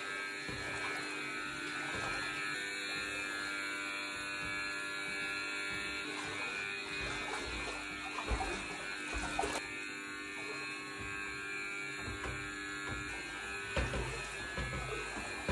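A steady electrical buzz with several fixed tones runs throughout. Over it, from about eight seconds in, come soft low thumps and sloshing of someone wading through ankle-deep floodwater.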